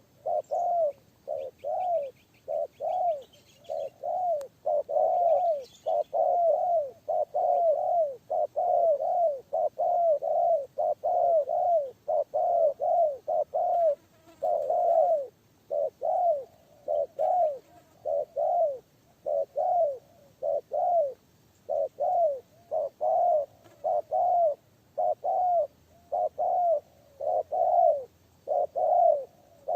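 Spotted dove (tekukur) cooing over and over, low arched coos in quick runs of two to four with short gaps between runs. A faint higher chirping of another small bird is heard in the first few seconds.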